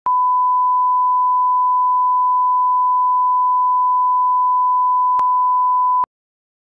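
Broadcast line-up reference tone of 1 kHz played with SMPTE colour bars: one steady pure tone that cuts off suddenly about six seconds in, with a faint click shortly before.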